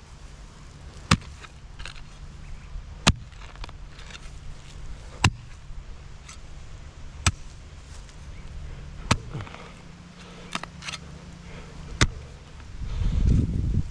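A hand tool chopping, with sharp single strikes about one every two seconds over a faint low hum; a louder rumbling noise starts near the end.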